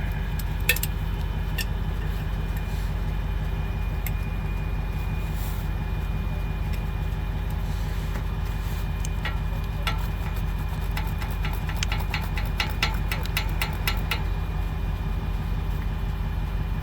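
Truck engine idling steadily, with a run of quick small metallic clicks from hand tools working on the bolts about ten to fourteen seconds in.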